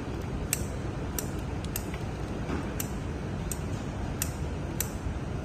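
Sharp light clicks at a slightly uneven pace, about one every half second to second, over a steady low background rumble.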